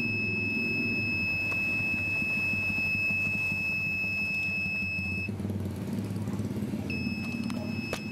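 Piezo buzzer on an Arduino rain and flood alarm sounding a steady high-pitched tone, signalling that rain has been detected. It cuts off about five seconds in and starts again nearly two seconds later. A low steady rumble runs underneath.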